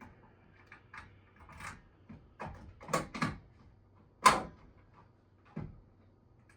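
Plastic and metal clicks and clunks of a BG-10 fire alarm pull station being handled and operated. There are two knocks close together about three seconds in, and the loudest, a sharp snap, comes just after four seconds.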